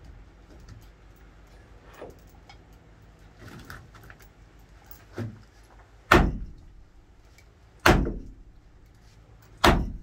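A heavy hammer striking metal: a few light knocks, then three hard, ringing blows in the second half, evenly spaced just under two seconds apart, as metal parts are beaten apart.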